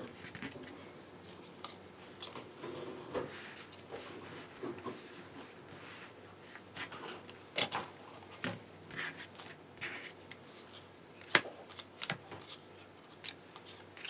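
Yu-Gi-Oh! trading cards being handled and laid out on a table: soft slides and light taps at irregular intervals, with one sharper click about eleven seconds in.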